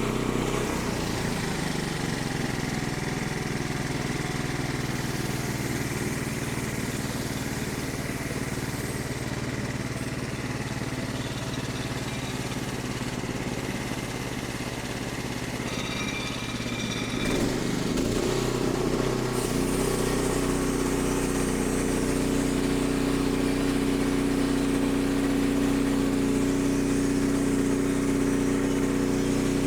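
Engine running steadily, its note changing about 18 to 20 seconds in and then holding a steadier, fuller hum.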